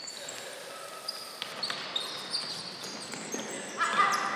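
Futsal players' shoes squeaking sharply on a wooden sports-hall floor, mixed with the thuds of the ball being kicked and touched. A brief louder squeal comes just before the end.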